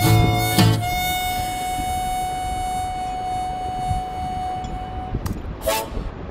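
Background music: a single high note held steadily for about five seconds, followed by a few short notes near the end.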